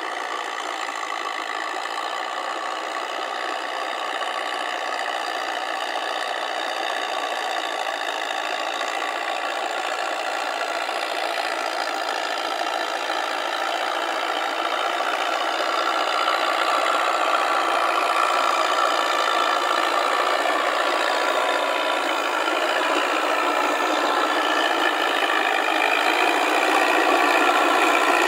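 Farm tractor engine running steadily while the tractor tills a flooded paddy on steel cage wheels, growing gradually louder as it comes closer.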